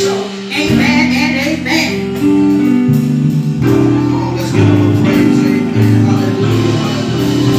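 Worship music: singing over held instrumental chords that change about once a second.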